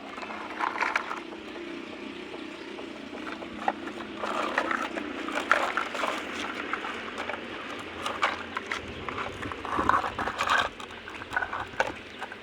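Irregular clicks and scraping noises, like objects being handled, with a faint steady hum in the first half.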